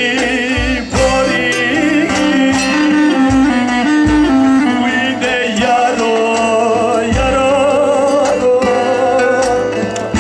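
A man singing a folk song in long, wavering, ornamented notes to his own bağlama (long-necked lute), played over a stage sound system.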